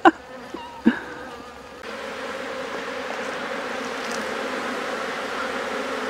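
Honeybee swarm buzzing steadily at close range, beginning about two seconds in. The captured swarm is massed on the ground at the entrance of a wooden hive box and crawling into it.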